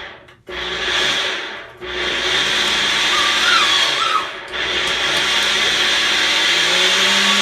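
Blender running in pulses: it stops briefly and starts up again several times, with the last run the longest.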